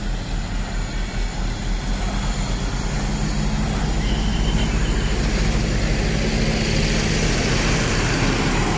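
Large coach bus diesel engine running close by, a steady low drone that grows gradually louder.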